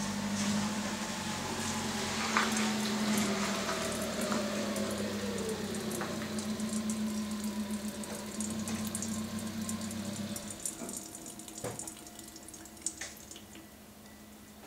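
Petrol running from the loosened float-chamber drain of a Honda NSR250R's carburettor into a plastic jug. The flow trickles off about two-thirds of the way through, leaving a few drips and small clicks.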